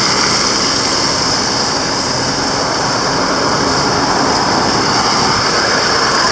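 Steady street traffic noise: vehicle engines and tyres running past, without a break.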